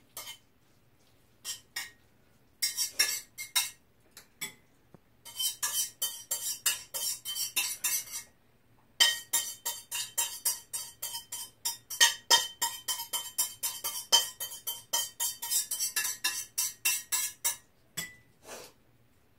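A metal utensil clinking rapidly against a metal pot, in two long runs of about four strikes a second, each strike ringing briefly, as food is stirred or mixed in it.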